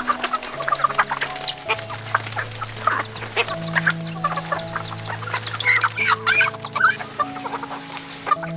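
Chickens clucking, many short clucks one after another, over soft background music with long held notes.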